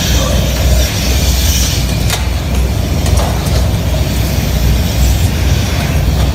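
Steady low rumble of a vehicle on the move, with a faint click about two seconds in.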